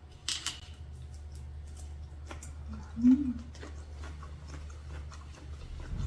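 A person chewing a mouthful of spicy seafood papaya salad, with scattered small wet mouth clicks and a short low sound about three seconds in, over a steady low hum.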